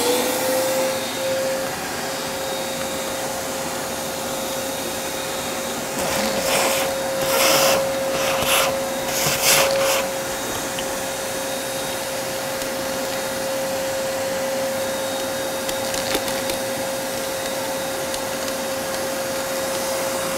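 Shop vacuum spinning up as it is switched on, then running with a steady motor whine and rush of air while its hose sucks debris out of an engine bay. Between about 6 and 10 seconds in come several louder rushes as the hose takes in debris.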